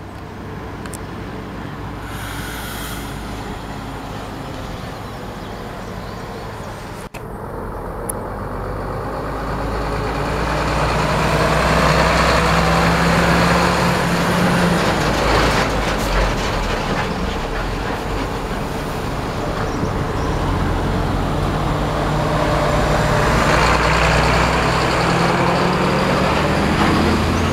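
Heavy diesel trucks and other road traffic going by close at hand, the engine drone swelling as trucks pass, once about ten seconds in and again near the end.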